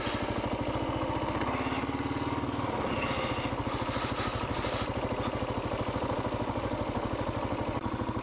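Kawasaki KLR650's single-cylinder four-stroke engine running steadily under a rider, an even beat of firing pulses.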